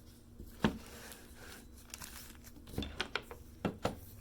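Small sharp clicks and taps of metal parts and hand tools while an ignition lock cylinder is worked apart: one louder click under a second in, then a quick run of five lighter clicks near the end, with faint crinkling between them.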